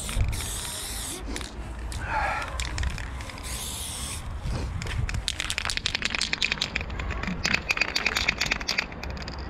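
Aerosol spray-paint can hissing in two short bursts, then a fast run of clicking for the second half: the can being shaken, its mixing ball rattling.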